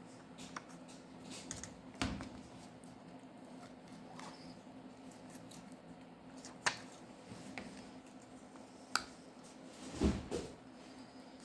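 Scattered small clicks and taps from handling a smartphone and its parts with opening tools during disassembly, about half a dozen over a low steady hum, with a small cluster near the end.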